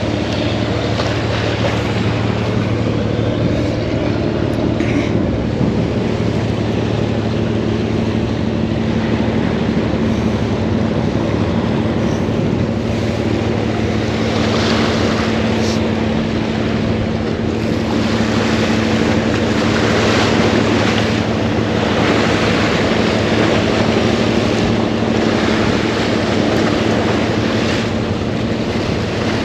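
Waves and wind buffeting the microphone, with a steady low engine hum underneath; the rush of hiss swells louder several times over the second half.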